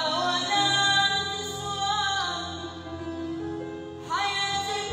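A woman singing an Arabic pop song over instrumental backing music, holding long notes with vibrato; a new sung phrase begins about four seconds in.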